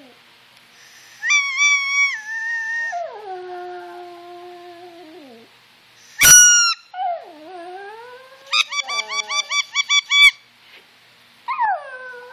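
Yorkshire terrier howling in long drawn-out notes that slide up and fall away, answering a squeaky toy: one sharp squeak about halfway through, then a quick run of about eight squeaks.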